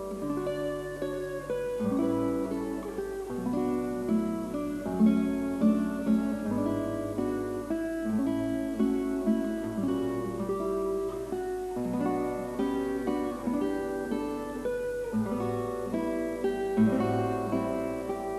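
Background music: acoustic guitar picking a melody over a plucked bass line.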